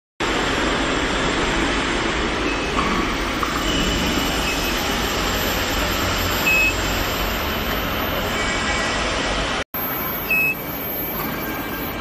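Steady machine noise from induction weld preheating equipment running in a workshop, with two short high beeps from its touchscreen control panel, one past the middle and one just after a brief dropout near ten seconds in.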